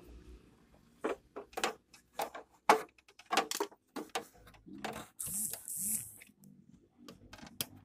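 Irregular clicks and knocks of plastic and metal copier parts being handled: connectors and a wire harness being worked loose inside an opened photocopier, with a brief rustling hiss about five seconds in.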